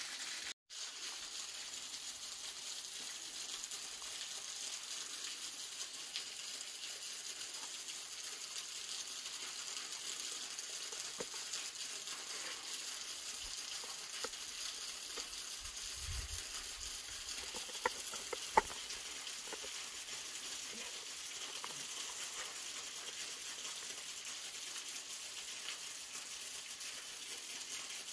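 Steady hiss of running water from a small waterfall and stream, with two small sharp clicks a little past halfway.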